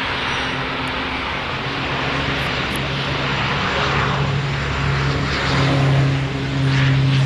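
Dornier 328's twin turboprop engines at take-off power on the runway, a steady low propeller drone under a broad rushing roar. It grows louder from about halfway through as the aircraft comes past.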